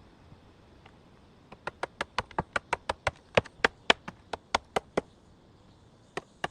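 A quick run of sharp taps or knocks, about five a second for three and a half seconds, then two more near the end.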